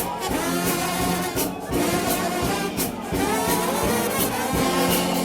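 Gospel brass band playing a hymn, with sustained horn chords over drums.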